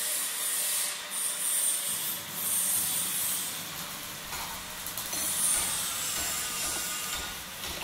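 A sustained hissing sound effect with a few faint crackles, joined by a low hum about two seconds in that deepens near the four-second mark.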